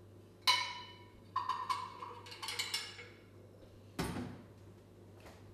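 Kitchenware being handled at a counter: a sharp ringing clink about half a second in, several more clinks over the next two seconds, and a duller knock about four seconds in.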